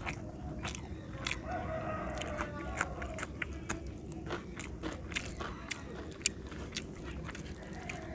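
Close-up eating sounds of a person eating rice and fish curry by hand: wet chewing and lip smacking with many small clicks. A chicken calls in the background about two seconds in.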